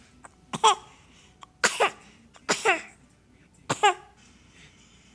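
Four short put-on coughs, about a second apart, each a sudden burst trailing off into a high voice that falls in pitch: a small child's fake coughs.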